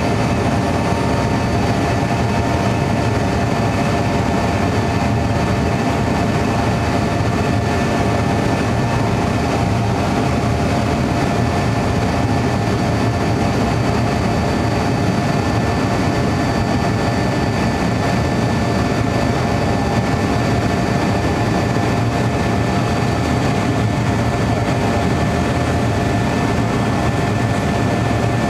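Cabin noise of an Avro RJ85 jet in its climb after take-off: its Honeywell LF507 turbofans run at a steady high power under an even rush of airflow. A few steady whining tones sit on top.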